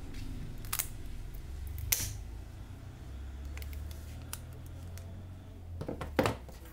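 Small plastic and metal clicks and taps as an Oppo A37f phone's battery is pulled out of its frame and handled. A sharp click about two seconds in, and a quick cluster of knocks near the end as the battery is set down on the table.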